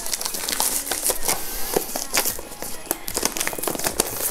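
Cardboard packaging rustling and scraping as a product box is slid out of its outer cardboard sleeve, with many irregular crackles and taps.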